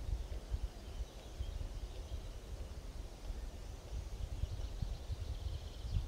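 Faint birdsong, scattered high chirps and trills, over a fluttering low rumble of wind on the microphone.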